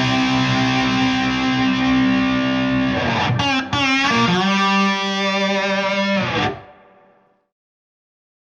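Electric guitar played through an Orange Kongpressor opto compressor pedal: a long sustained chord, a brief passage of wavering, bent pitch about three seconds in, then a second held chord that is cut off sharply about six and a half seconds in.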